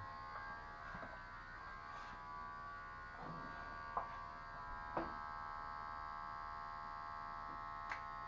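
Electric hair clipper running steadily as it cuts hair, with a few short sharp clicks about four, five and eight seconds in.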